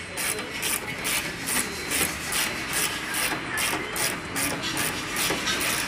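Hand ratchet wrench worked back and forth on a bolt behind a wheel hub, its pawl clicking in short raspy bursts about three times a second.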